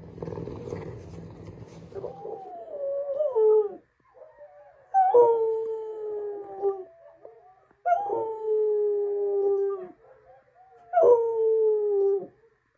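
A dog howling, four long howls in a row, each starting a little higher and sliding slightly down in pitch. She is answering other dogs howling outside. Before the howls, about two seconds of low noise.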